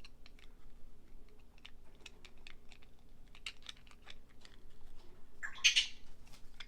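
Small plastic parts of a Mini Brands toy fridge clicking and tapping as they are handled and fitted into place, in many quick light clicks. About five and a half seconds in, a brief, louder scraping rustle.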